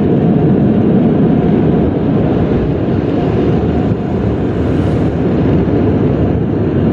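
Loud, steady noise of an automatic car wash heard from inside a truck cab, with water spray and machinery blending into one even sound, while water leaks into the rear passenger-side cab.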